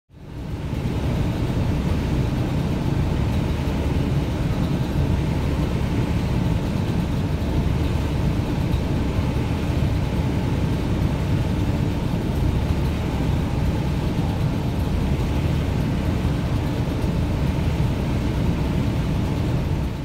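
1990 Toyota pickup's engine running steadily, heard from inside the cab.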